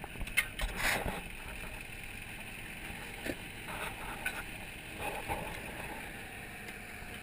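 A pickup truck's door opening, with a few knocks and clunks in the first second, then scattered light knocks and scuffs of steps on dry dirt under steady wind noise on the microphone.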